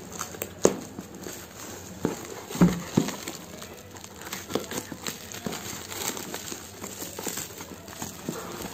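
Plastic wrap and bubble wrap crinkling and rustling as they are cut with scissors and pulled off a cardboard parcel, with scattered sharp snips and knocks. The loudest knocks come at under a second in and at about two and a half seconds in.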